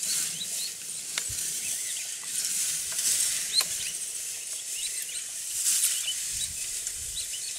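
Open grassland ambience: a steady high hiss with many short chirps from small birds or insects, and a few sharp clicks.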